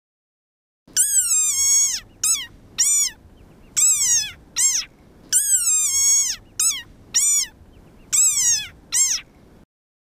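Desert rain frog squeaking: about ten high, shrill squeaks in quick runs, each one rising briefly and then dropping in pitch, some long and some clipped short. This is the defensive squeak the frog gives when threatened.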